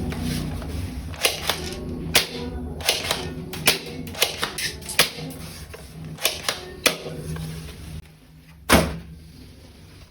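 Toy guns clicking and snapping: a quick, irregular run of sharp plastic clicks, then one louder crack near the end.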